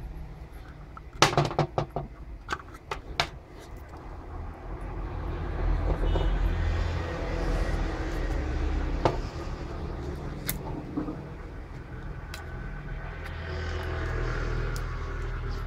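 Handling noise from an opened battery charger: a quick run of sharp clicks and knocks about a second in, then single clicks later, as the circuit board and its plastic case are turned over in the hands. A steady low rumble runs underneath.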